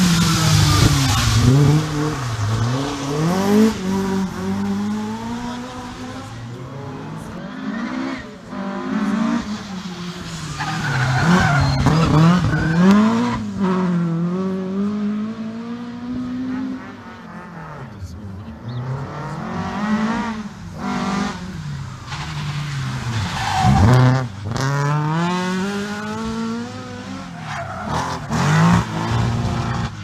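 Ford Escort rally cars at full throttle passing one after another, engines revving up and dropping in pitch at each gear change. The loudest passes come about a second in, around twelve seconds in and about twenty-four seconds in.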